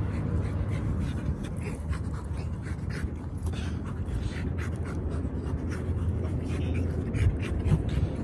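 A black Labrador rolling and wriggling on its back on dry dirt, its body scraping and crunching the ground in many short irregular scratches, over a steady low rumble.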